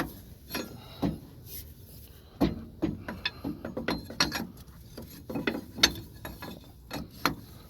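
Large wrench working a hydraulic line fitting tight, making irregular metallic clicks and ratcheting clinks.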